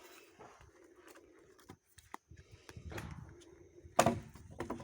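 Firewood being handled: scattered cracks and rustles of dry branches, with one loud sharp knock of wood about four seconds in. A faint steady hum runs underneath.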